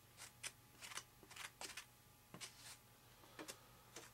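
Faint scraping and rubbing of a stick spreading contact cement over a model-plane part, in short irregular strokes a few times a second.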